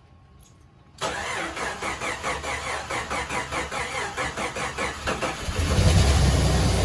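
Jeep Cherokee six-cylinder engine being started: the starter cranks it rhythmically for about four seconds before it catches and runs, louder, near the end. It starts on freshly changed spark plugs after refusing to start before.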